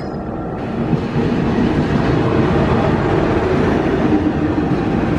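Diesel shunting locomotive running as it passes close by, its engine noise growing louder about a second in and then holding steady.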